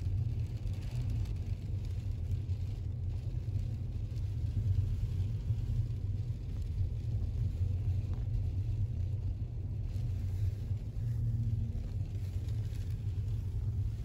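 Steady low rumble of a car driving, heard from inside the cabin: road and wind noise, with no distinct knocks or taps.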